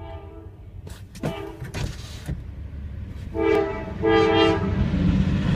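Locomotive horn of an approaching freight train sounding two short blasts about three and a half seconds in, over a low rumble of the train that grows louder toward the end. A few sharp clicks come before the horn.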